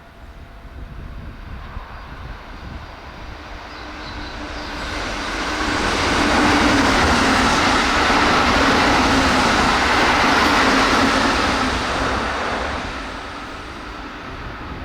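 Keihan 13000-series electric train passing through at about 105 km/h: the rush of wheels on rail swells over a few seconds, stays loud for about seven seconds with a steady hum in it, then fades away.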